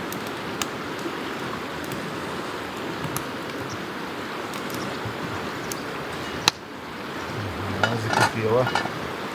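Steady rushing of stream water with scattered small crackles from a campfire. A sharp click about two-thirds of the way in, then metal pots clinking on the fire grate and a brief voice near the end.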